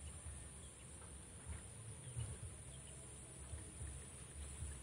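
Outdoor ambience at a swamp pond: wind buffeting the microphone in low, uneven gusts, over a steady high-pitched whine, with a few faint bird chirps.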